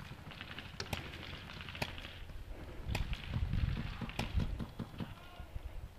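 Paintball pistols firing on the field: sharp single pops roughly a second apart, with a low rumble swelling in the middle.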